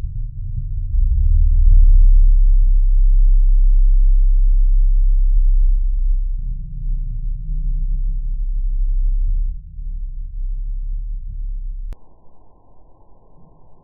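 A deep, low drone with nothing but bass, swelling about a second in and easing off near ten seconds. Near the end it cuts abruptly to a much quieter faint hiss.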